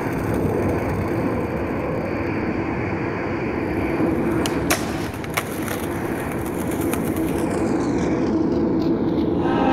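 Skateboard wheels rolling over rough pavement in a steady rumble. Midway there are two sharp clacks of the board, less than a second apart. Music comes in near the end.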